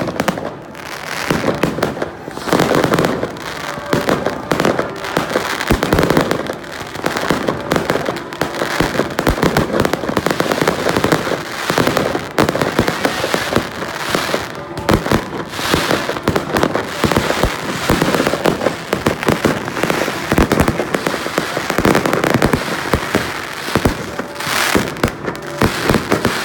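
Fireworks going off in a dense, unbroken barrage: many overlapping bangs and crackling bursts with no pause.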